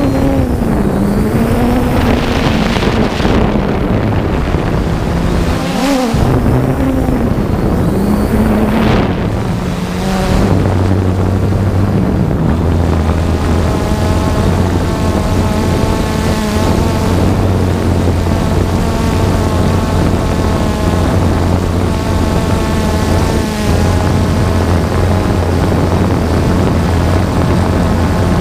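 3DR Solo quadcopter's motors and propellers whirring, picked up by the camera riding on the drone. The pitch wavers up and down for about the first ten seconds as the motors change speed, then settles into a steady hum.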